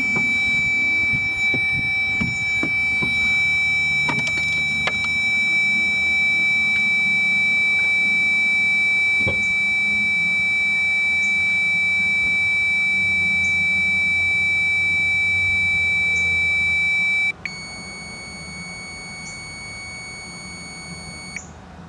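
Electrical circuit tester's buzzer sounding a steady high tone, showing that voltage is reaching the Mustang's fuel pump module circuit. About three-quarters of the way through it drops to a quieter, slightly lower tone, which cuts off just before the end; a few faint clicks sound early on.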